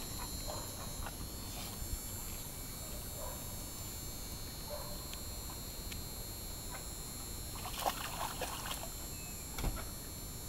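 A dog's paws sloshing and splashing in shallow water in a plastic tub, light and intermittent, with a brief flurry of splashing about eight seconds in.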